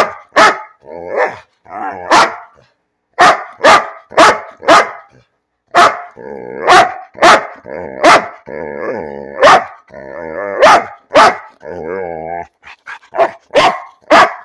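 A large dog barking insistently, a fast run of loud, sharp barks, with drawn-out vocal sounds of wavering pitch between them.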